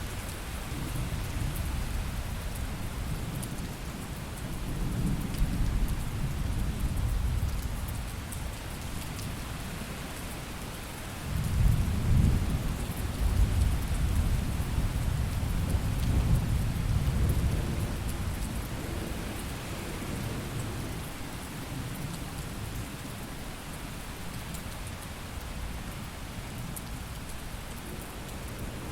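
Thunderstorm: steady rain with rolling thunder. A low rumble swells about five seconds in, then a louder peal breaks suddenly about eleven seconds in and rolls on for several seconds before dying away under the rain.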